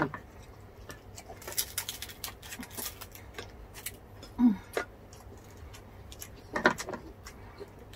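Close-up eating sounds of deep-fried pork with crispy skin: scattered crunches and crackles of the skin being bitten and chewed, with wet mouth sounds. A couple of brief hummed 'mm's come about halfway through and near the end.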